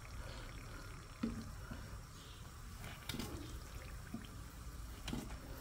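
Hot oil sizzling and bubbling around a breadcrumb-coated bread round deep-frying in a pan, with a few faint knocks.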